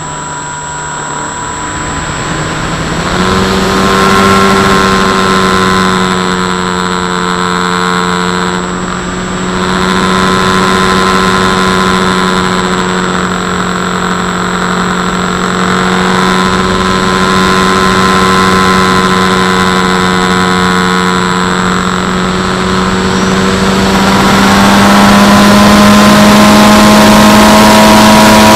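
FX-79 flying wing's electric pusher motor and propeller whining steadily, the pitch stepping up about three seconds in as it speeds up. Near the end a rush of wind builds as the plane dives steeply.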